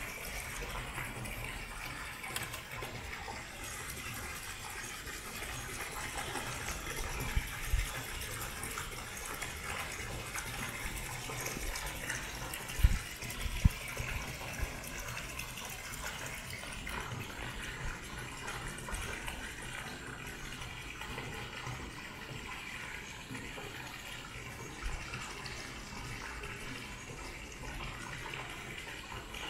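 Steady rushing noise like running water, with a low flickering rumble of wind on the microphone and a few brief dull thumps about halfway through.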